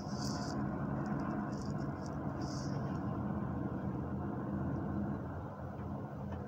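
Steady engine and road rumble inside a bus cabin, heard from a seat while it cruises on the highway, with a few short hissy sounds in the first three seconds.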